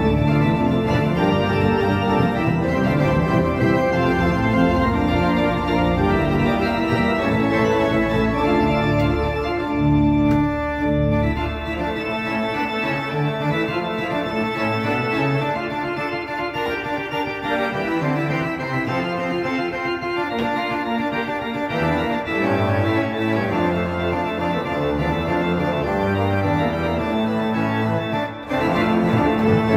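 Pipe organ playing a Baroque-style improvisation on a principal chorus with mixtures (plenum), heard close up from the Rückpositiv case. The deep bass notes drop out about twelve seconds in and come back in stretches later, and there is a brief break in the playing near the end.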